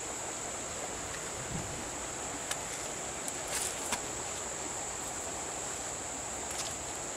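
Steady high-pitched insect drone over a constant hiss, with a few faint clicks of footsteps on wet gravel and stones.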